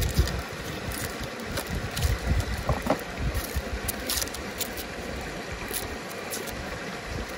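River water rushing steadily, with uneven low rumbling buffets on the microphone and a few light clicks and taps from handling.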